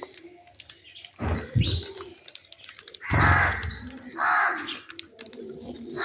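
A crow cawing several times, loud and close, with short high sparrow chirps between the caws.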